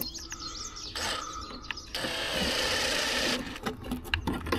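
DeWalt cordless drill/driver running for about a second and a half, tightening a fitting on the bus's coolant pipework, then a few short clicks near the end.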